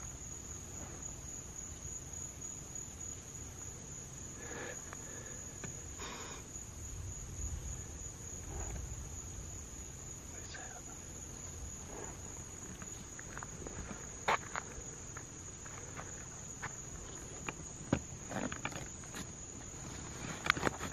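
Steady high-pitched chorus of night insects, with a few sharp clicks late on.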